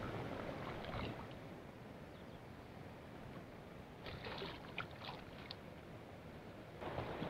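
Shallow river water flowing steadily, with a few small splashes and sloshes about four to five seconds in as a trout is handled in a landing net in the water.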